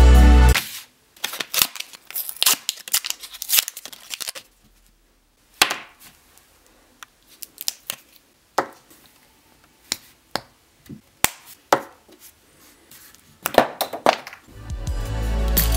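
Hands handling a plastic ChapStick lip balm tube and a 3D-printed plastic cap: a few seconds of close crackly rustling, then scattered light plastic clicks and taps. Music fades out just after the start and comes back near the end.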